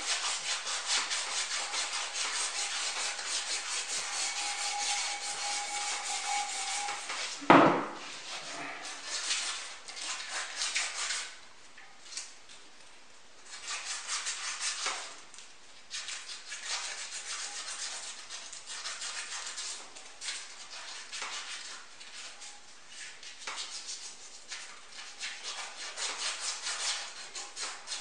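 Hand polishing of a sculpture's metal support rods: quick back-and-forth rubbing strokes with a strip of polishing material, in runs broken by short pauses. A single sharp knock comes about seven and a half seconds in.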